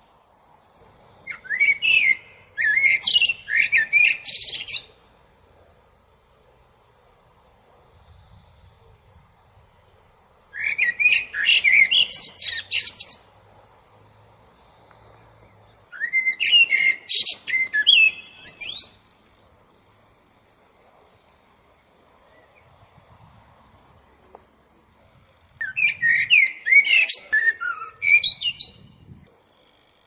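Common blackbird singing: four song phrases of rapid, varied warbling and squeaky notes, each about three seconds long, separated by pauses of several seconds.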